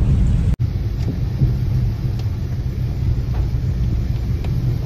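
Steady low rumble of a car driving on a rain-soaked road, heard from inside the cabin, with a brief dropout about half a second in.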